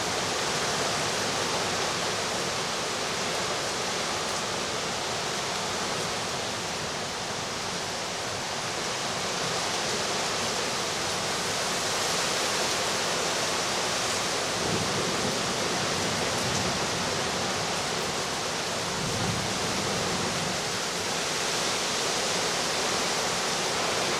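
Heavy rain and wind of a severe thunderstorm: a steady, even rushing noise, with two faint low swells in the second half.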